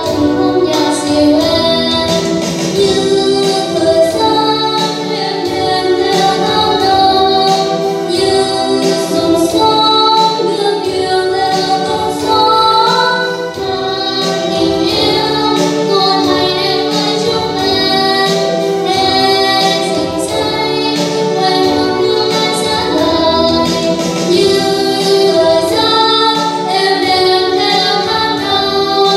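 Two young girls singing a Vietnamese song as a duet into handheld microphones, over backing music with a steady beat.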